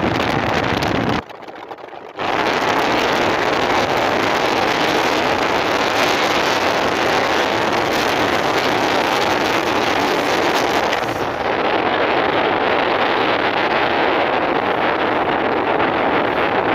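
Steady wind rush and road noise from inside a moving car on a wet road. It dips briefly about a second in, then runs on loud and even.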